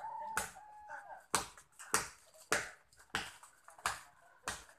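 A blade chopping into an areca palm trunk: about seven sharp wooden knocks, roughly one every 0.6 seconds, as the trunk is cut through section by section.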